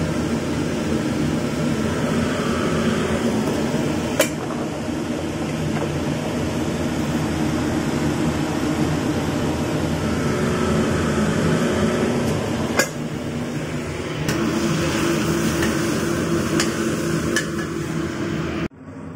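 Steady hum of a kitchen fan running, with two sharp clinks of a plastic spoon against a glass seasoning jar, about four seconds in and again about two-thirds of the way through.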